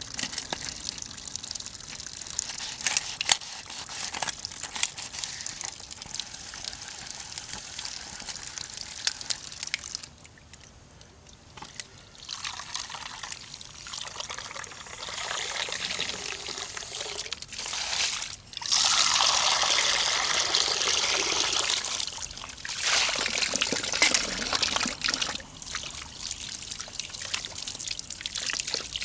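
Liquid being poured into a pot in several runs over the second half, the longest and loudest in the middle of that stretch. Sharp clicks come before it, in the first third.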